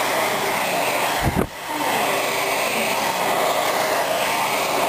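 Hand-held hair dryer blowing steadily while hair is blow-dried straight, with a short low thump and a brief dip in the airflow noise about a second and a half in.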